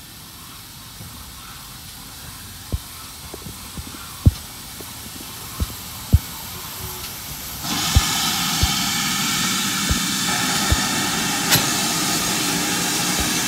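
GWR Large Prairie 2-6-2 tank engine No. 5199 running in with its train: irregular low knocks of wheels over rail joints and points. About eight seconds in a loud, steady hiss of steam starts suddenly as the engine comes alongside.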